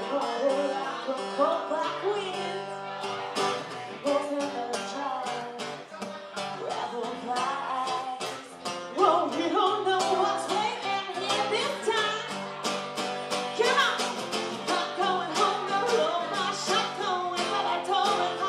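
Live country band music: a singer's voice over guitar with a steady drum beat.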